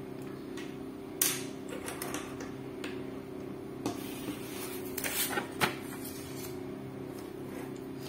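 Metal fountain pens and spiral notepads being handled and set down on a tabletop: scattered light clicks and knocks, the clearest about a second in and again after five seconds, over a steady low hum.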